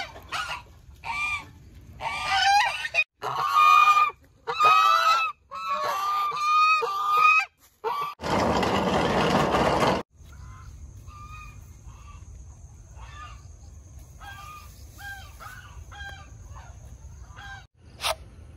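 Domestic geese honking, loud repeated calls for about eight seconds. A short burst of rushing noise follows, and then fainter honks continue over a steady high tone.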